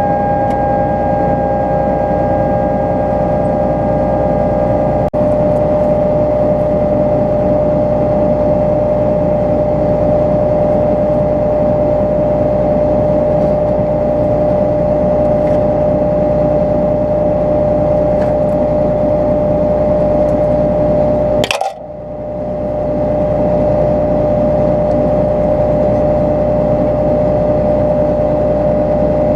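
John Deere 9500 combine running steadily during soybean harvest: a steady engine and machinery drone with a constant hum. It briefly drops out with a click about two-thirds of the way through, then carries on.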